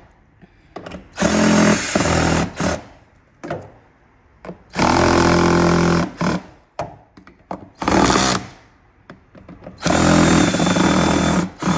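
Cordless drill driving screws in four short runs of a second or two each, with small clicks and knocks between runs, tightening the screws that hold a plastic engine-bay cover in place.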